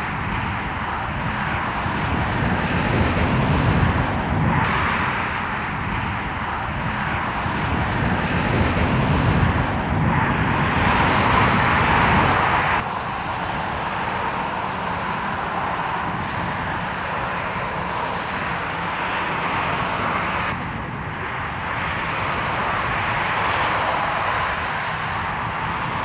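Jet engines of an Airbus airliner running, heard at a distance: a steady rush with a whining tone in it. The sound jumps in level several times, dropping most sharply about halfway through.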